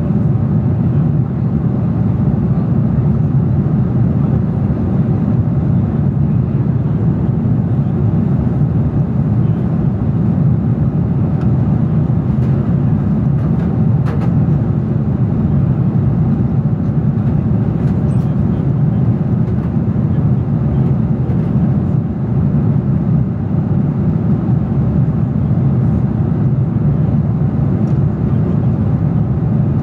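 Steady low rumble of a jet airliner cabin at cruise altitude: engine and airflow noise heard from inside the cabin, unchanging throughout.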